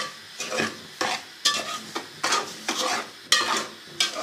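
Semolina being stirred and roasted in hot ghee in a pan until it changes colour. A spoon scrapes through it in quick repeated strokes, about two a second, over a light sizzle.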